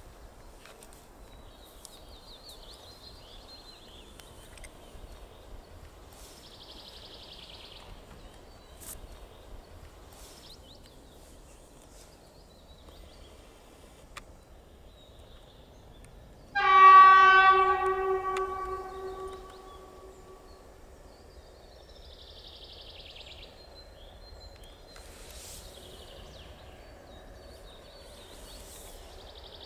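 ET22 electric locomotive at the head of a container freight train sounding its horn once, a blast of about three seconds that starts sharply past the middle and fades away. Around it, only the faint noise of the approaching train.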